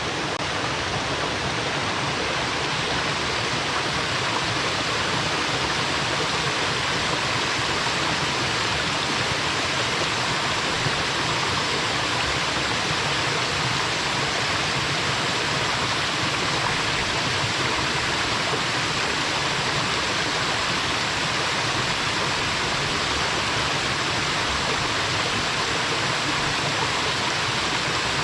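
A small waterfall pouring into its pool: a steady rush of falling water with a bubbling, 'poko-poko' gurgle.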